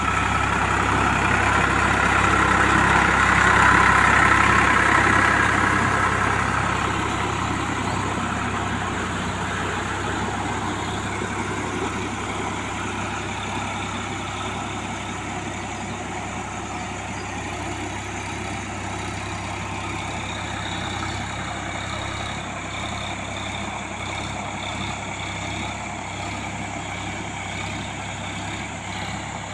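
Sonalika tractor's diesel engine running steadily as it drives through a flooded paddy field on cage wheels, loudest a few seconds in and then slowly fading as the tractor moves away.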